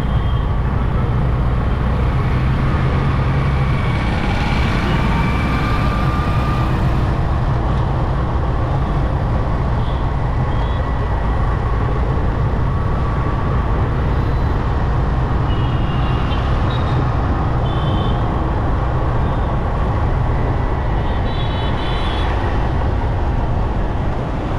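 Ride-along sound from a motorcycle in city traffic: a steady run of engine and wind noise, with short, high horn toots from surrounding traffic several times through the middle and near the end.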